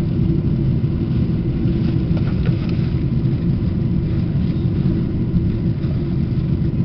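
Steady low rumble of engine and airflow noise inside the cabin of a Boeing 777-200ER in flight.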